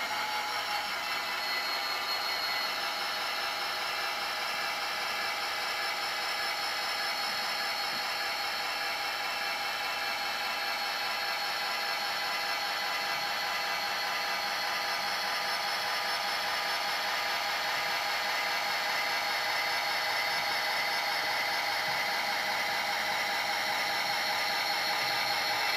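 Zimo MX645R sound decoder in an OO gauge NIR class 111 model diesel locomotive, playing the locomotive's diesel engine sound through the model's small speaker. It runs steadily, tinny with no deep bass, and the engine note starts to rise near the end.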